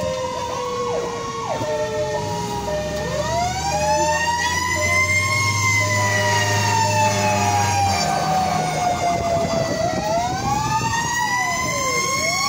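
Fire-engine sirens heard from inside the cab of a 2003 Pierce Dash rescue-engine. A mechanical Q-siren winds slowly down, climbs again and falls in a long wail, while a second siren sweeps up and down faster near the end. The truck's engine runs underneath.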